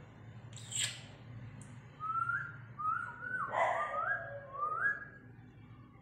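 A series of five short whistled notes, each sliding up and then holding, starting about two seconds in, with a rougher rasping sound under the middle notes. A single sharp click comes about a second in.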